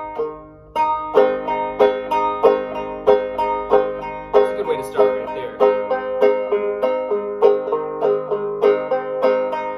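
1891 Fairbanks Electric open-back banjo in gDGBD tuning, played in the up-picking style: the index finger picks up on a melody string while the hand stays planted on the head. It makes a steady rhythm of plucked, ringing notes.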